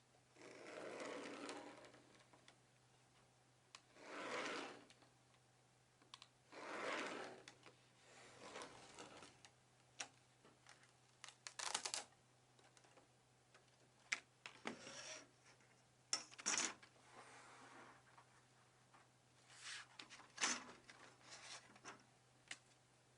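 Faint workshop hand-work sounds: a few short scraping passes a second or so long, then scattered sharp clicks and small knocks with pauses between them.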